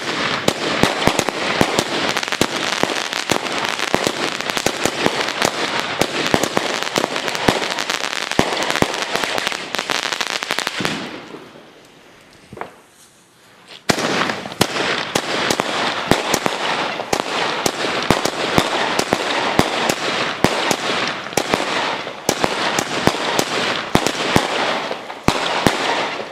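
Vulcan Bad Boys 16-shot firework cakes firing, a dense crackle of many sharp pops as the shots launch and burst. The first cake stops about eleven seconds in. After a short lull with a couple of pops, the next cake starts and fires until near the end.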